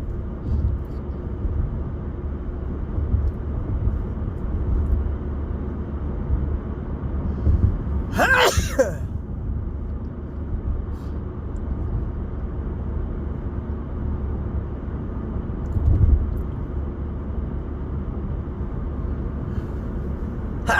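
A man sneezing once, about eight seconds in, with another sneeze starting right at the end, over the steady low rumble of a moving car's cabin.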